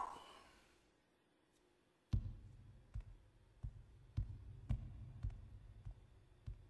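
Heavy footsteps: soft, low thuds about twice a second, beginning about two seconds in, after a short sound dies away in the first second.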